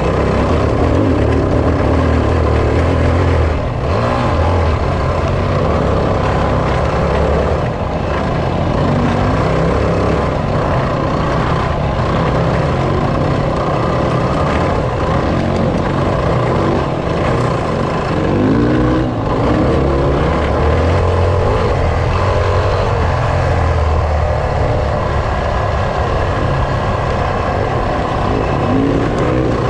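Enduro motorcycle engine heard from on board while riding a rough dirt trail, running steadily under changing throttle. Its pitch climbs briefly a few times as it revs, around the middle and again near the end.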